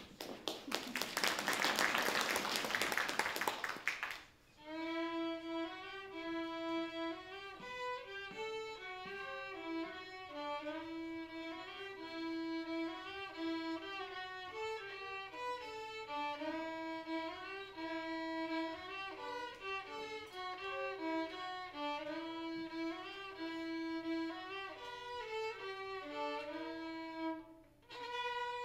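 About four seconds of audience applause, then violins playing a simple tune of held notes in a steady rhythm, a young student and her teacher bowing together; the playing pauses briefly near the end and starts again.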